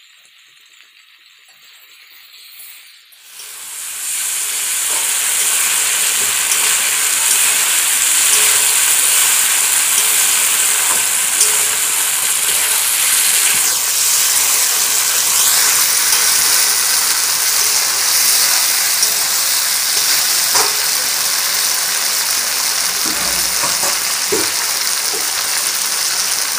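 Chicken and potato pieces frying in hot oil and masala in a kadai: a loud, steady sizzle that starts suddenly about three seconds in. A metal spatula stirs, scraping and clicking against the pan a few times near the end.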